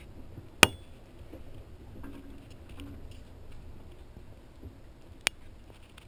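Low rumble of wind and water on a small sailboat's camera, broken by two sharp clicks, one about half a second in and one near the end.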